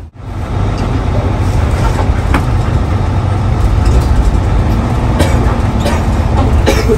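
Hino AK8 bus in motion, heard from inside: a steady engine and road rumble, with a few short clicks and rattles.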